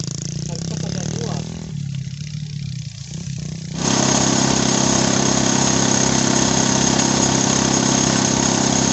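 Small engine of a rice threshing machine running. About four seconds in, the sound jumps to a much louder steady din, with a hiss over the engine hum: the thresher working at full speed.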